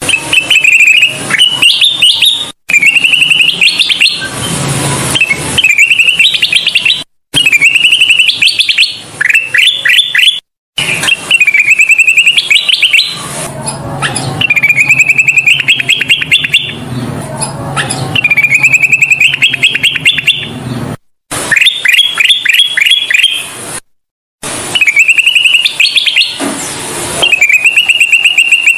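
Kutilang emas bulbul singing: phrase after phrase of fast, clear chirping notes, many sweeping upward, repeated again and again. There are a few brief dead-silent breaks where the recording is spliced.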